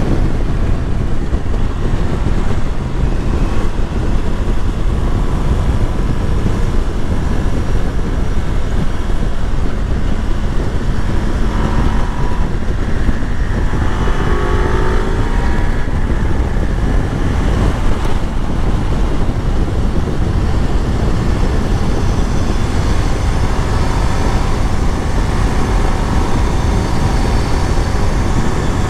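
Ducati Multistrada V4S motorcycle riding at road speed: steady heavy wind rush on the microphone over the engine running. About halfway through, a short higher-pitched tone sounds for a few seconds.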